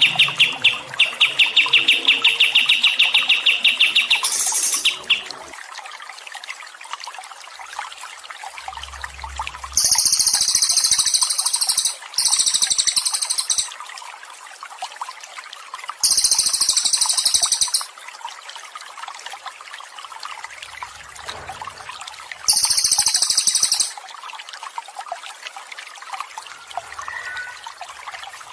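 Recorded songbird song over a steady trickle of running water. A fast trill runs for the first four seconds or so, followed by four very high, rapid trilling phrases of about two seconds each, spaced a few seconds apart.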